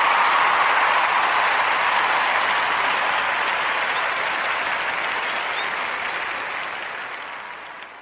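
Canned applause sound effect: a crowd clapping as a dense, even patter that is loudest at first and fades out over the last few seconds.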